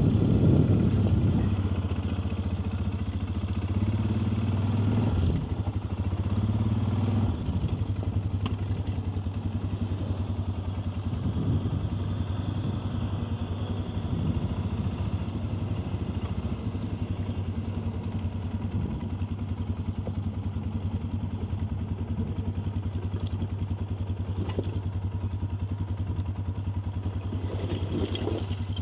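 ATV engine running with a steady throb, revving up briefly a few times in the first seconds, then settling to a steady low run.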